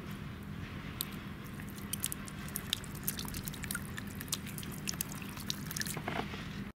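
Water from a small solar-powered floating fountain spraying and splattering, with many scattered droplet ticks landing in the basin and on the ground, over a steady low hum. The sound cuts off suddenly near the end.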